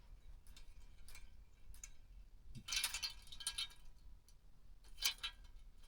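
Windmill drummer ornament being set turning, its mechanism and drummer figure giving faint, irregular ticks and clicks. There is a brief flurry of quicker ticks about three seconds in and another short cluster near five seconds.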